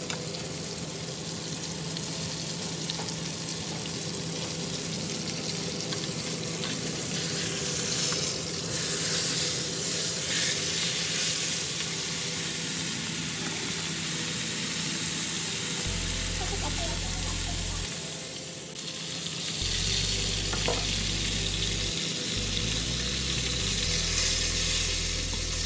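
Cod fillet coated in tempura flour frying in hot oil in a non-stick pan: a steady sizzle that dips briefly about two-thirds of the way through.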